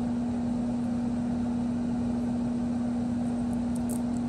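Steady machine hum holding one constant tone over a low whirr, like a running appliance or fan. A few faint small clicks near the end come from fingers handling small metal hardware.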